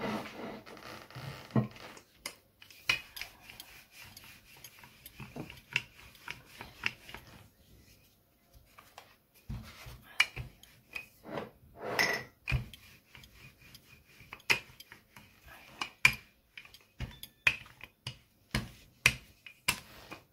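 Kitchen handling sounds while paratha dough is being worked on a counter: irregular knocks and clicks of utensils and dishes, with stretches of rubbing near the start and about twelve seconds in.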